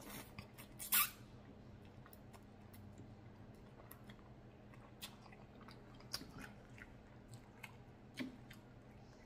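Pho rice noodles slurped from chopsticks in one short slurp about a second in, then close-up chewing with small wet mouth clicks.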